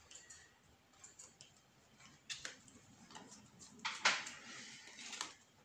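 Yu-Gi-Oh cards being shuffled and handled by hand: a run of light clicks and snaps of card stock, with a louder rustling riffle about four seconds in.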